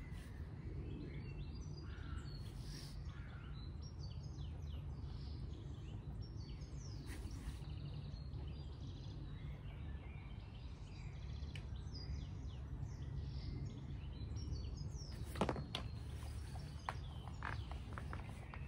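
Birds chirping outdoors over a steady low rumble of background noise, with a few sharp clicks near the end.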